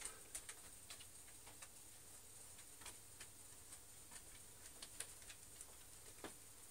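Near silence: faint room tone with a steady hiss and scattered faint, irregular clicks.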